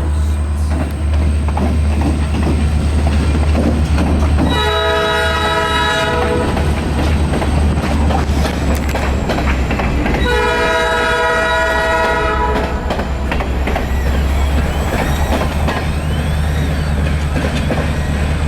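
Diesel locomotives running light with a steady loud engine rumble, sounding a multi-chime air horn in two long blasts, about four seconds in and again about ten seconds in.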